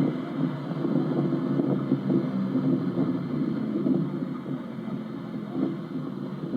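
Hino bus's diesel engine heard from inside the cabin while the bus drives, a steady low drone with frequent small knocks and rattles.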